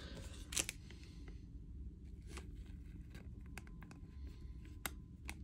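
Hockey trading cards being handled and flipped, giving a few light snaps of card stock, over a steady low hum.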